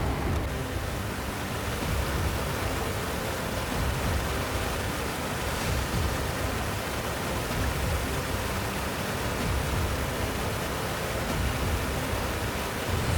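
Steady rushing of water, an even unbroken noise with a heavy low rumble.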